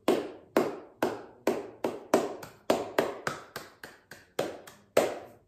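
One person clapping her hands, a steady run of single claps about three a second, each with a short echoing tail, stopping just before the end.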